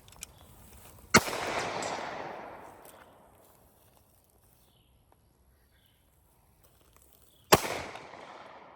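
Two pistol shots from a Glock, about six seconds apart, each followed by a long echo that fades away.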